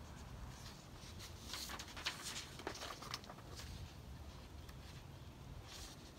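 Faint paper rustling and soft crinkles as hand-held paper sign cards are handled and swapped, over low, steady background noise.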